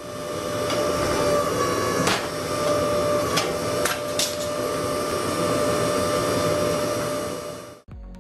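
A machine running steadily with a high whine, and a few sharp clicks in the middle. It cuts off suddenly shortly before the end.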